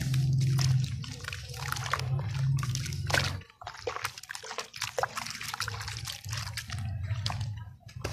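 Wet sand-and-cement lumps squeezed and crumbled by hand in a tub of water: splashing, sloshing and gritty crackles. A low hum underneath cuts out about three and a half seconds in and returns faintly later.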